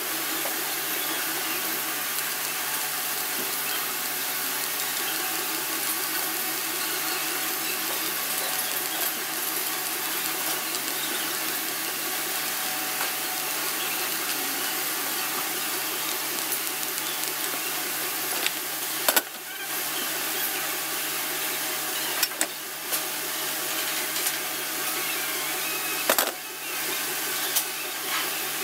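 MIG welding arc on a steel frame: a steady crackling hiss like frying. It breaks off briefly three times in the last third, each with a sharp crack.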